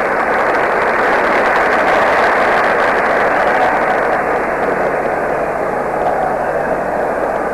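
Football stadium crowd making a steady, loud din of many voices, swelling slightly a couple of seconds in.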